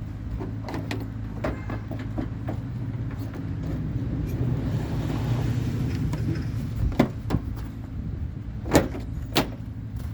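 Hard plastic knocks and clicks as a truck's front turn-signal lamp assembly is handled and fitted back into place, with two sharp knocks near the end, over a steady low hum.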